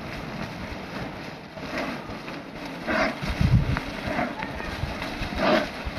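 Wind buffeting the microphone, with a few short calls about once a second and a heavy low rumble a little past the middle.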